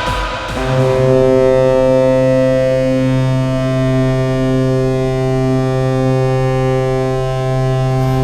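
Laval Rocket arena goal horn sounding one long, steady, deep blast that starts just under a second in, cutting off the tail of music before it.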